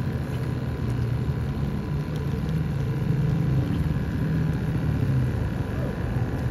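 A steady low motor hum with faint steady higher tones above it.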